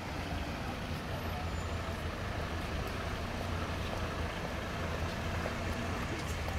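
Steady low rumble of a Mercedes-Benz Actros truck's diesel engine as it creeps past in slow traffic, mixed with the even noise of cars on a wet street.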